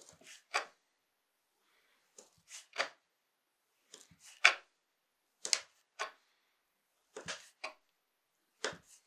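A large knife cutting through a rolled sheet of fresh egg-pasta dough on a wooden board. There is one cut about every one and a half seconds, six in all, each a brief slice and a sharp knock of the blade on the wood.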